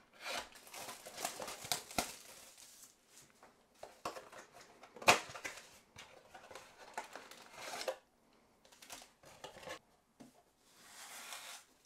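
A cardboard trading-card blaster box being torn open by hand, followed by foil card packs rustling as they are pulled out and stacked. The sound is a run of irregular clicks and crinkles, with one sharp snap about five seconds in.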